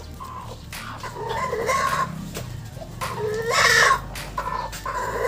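Chickens: a rooster crowing several times in separate calls, the loudest about three and a half seconds in.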